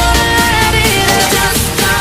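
Background pop music with an electronic beat.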